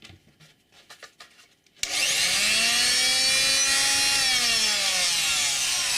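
Corded electric multi-tool, powered through a homemade extension cord, switched on about two seconds in after a few small handling clicks: its motor winds up quickly to a high whine, holds steady, then sags somewhat in pitch near the end while still running. Running at all shows the homemade cord is carrying power.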